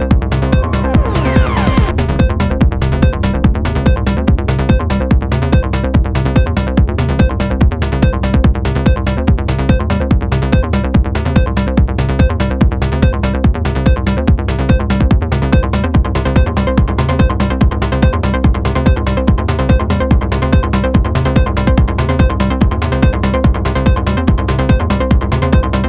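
Techno-style electronic jam from a Moog Sound Studio synthesizer and a Roland TR-09 drum machine: a steady, fast drum-machine beat with hi-hats over a sustained synth bass line, with a high held synth note coming in about halfway.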